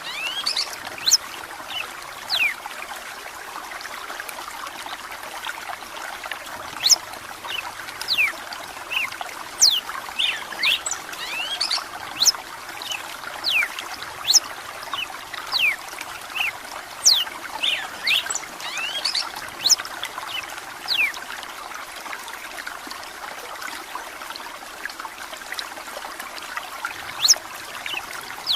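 Red-cowled cardinal singing in many short, sharp, downward-sweeping notes over a steady trickle of running water.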